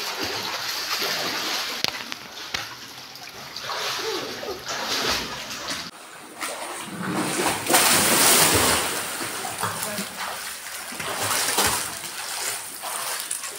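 Water splashing in a busy swimming pool, with a louder spell of splashing about eight seconds in, and voices in the background.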